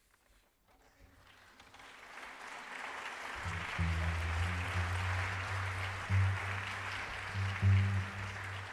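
Audience applause building from near silence after a string quartet's piece ends, joined about three and a half seconds in by low, held music notes that shift pitch twice.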